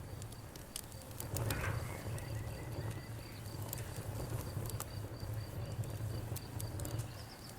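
Campfire crackling, with scattered sharp pops over a steady low rumble of the flames. A high, thin chirp repeats evenly, about three times a second, in the background.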